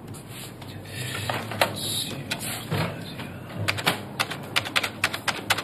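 Keys of a manual typewriter clacking in an irregular run of strikes, coming faster in the second half.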